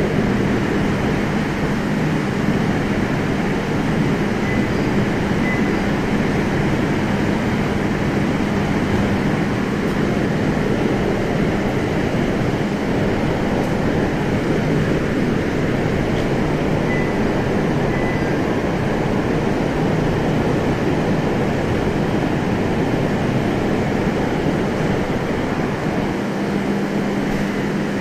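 JR East 701 series electric train running at speed, heard from inside the carriage: a steady rumble of wheels on rail with a steady low hum.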